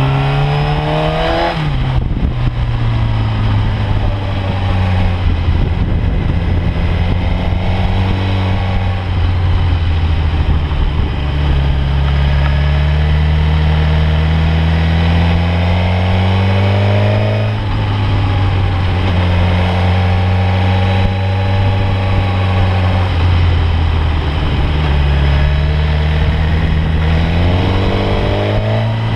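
Sport motorcycle's engine, heard from the rider's seat, pulling hard through the gears. The revs climb, drop sharply at a gear change about a second and a half in, then rise and fall several more times as the throttle opens and closes and the gears change.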